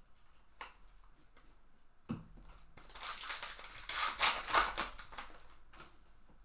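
Trading cards and their pack wrapper being handled: a light knock about two seconds in, then a crackly crinkling rustle that is loudest around four to five seconds in.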